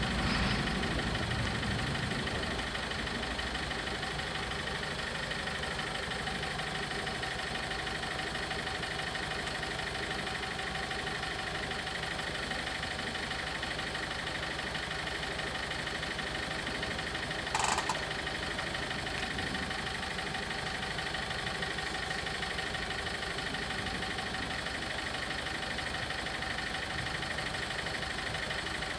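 A level-crossing warning bell ringing continuously, over the steady idle of a car's engine close by. A brief sharp noise breaks in once, a little past halfway.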